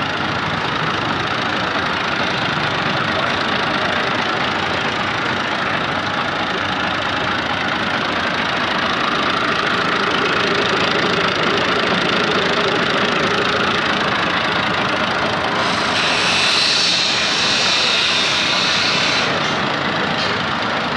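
New Holland Ghazi 65 hp tractor's diesel engine idling steadily. A hissing noise joins it for a few seconds near the end.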